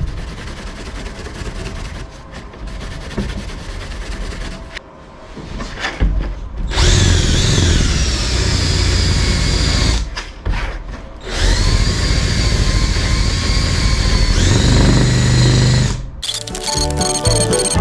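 Handheld power tool scuffing aluminium stiffener strips to prepare them for primer, run in two long spells with a motor whine that rises as it spins up. Background music with a steady beat comes in near the end.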